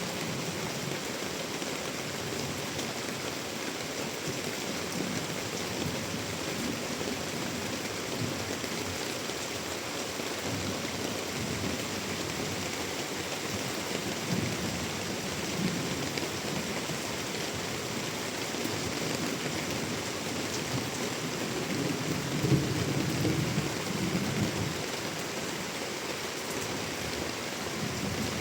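Heavy monsoon rain pouring steadily, with low rumbling swells coming and going underneath, the loudest about three-quarters of the way through.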